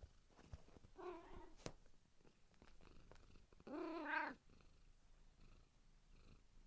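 Domestic cat purring, with a short, faint meow about a second in and a louder, longer meow about four seconds in.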